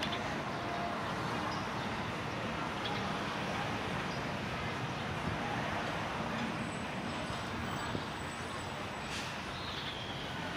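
Steady city traffic noise: a continuous rumble and hiss of passing vehicles.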